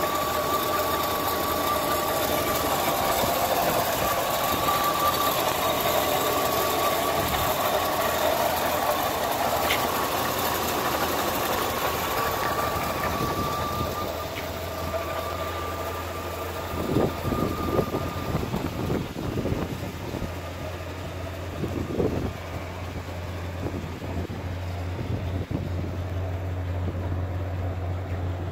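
1980 Pontiac Bonneville V8-era engine idling steadily: heard first over the open engine bay with a steady high whine riding on it, then from the rear of the car as a steady low exhaust drone, with a few brief thumps about two-thirds through.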